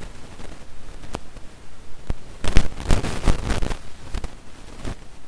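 Wind buffeting and rustling on the microphone, rising to its loudest in gusts a little after halfway, with a few sharp clicks of handling noise.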